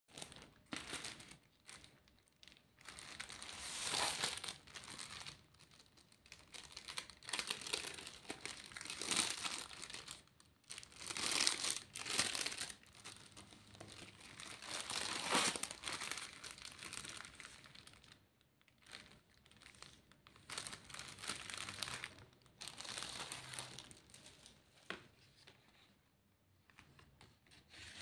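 Clear plastic packaging bag crinkling and rustling in irregular bursts as it is handled and opened, with some tearing; it dies down in the last couple of seconds.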